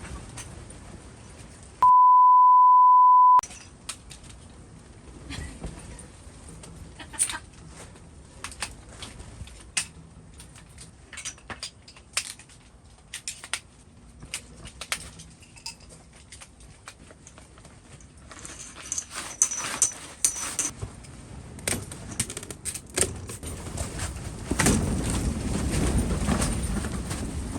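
An electronic beep, one steady high tone about a second and a half long, the loudest sound, with all other sound cut out beneath it. Around it, scattered sharp clicks and knocks over a low rush that grows louder and gustier near the end, like wind on the microphone.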